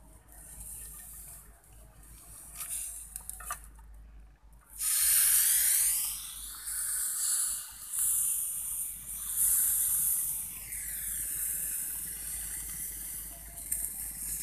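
Meat sizzling under an antique charcoal-heated iron pressed down on it, a high hiss that starts suddenly about five seconds in and then swells and eases in waves.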